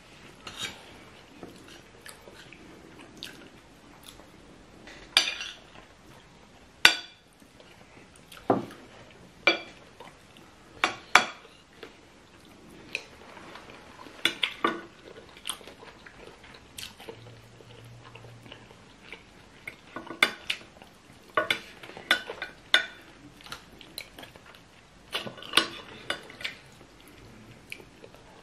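Metal spoons and forks clinking and scraping against plates and a glass serving bowl at irregular moments, the sharpest clinks about 7 and 11 seconds in.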